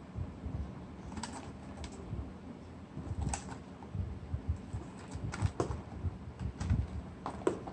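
Handling of a small paperboard box turned over in the hands: scattered light clicks, taps and soft rubs of fingers on card, with a few dull low thumps.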